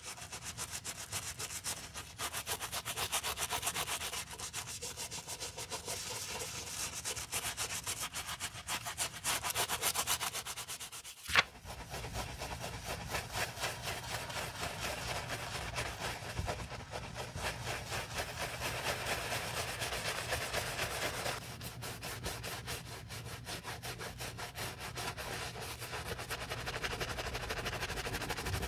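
A stiff bristle brush scrubbing a wet, soapy sneaker's rubber sole and canvas upper in rapid back-and-forth strokes. A single sharp click comes about eleven seconds in.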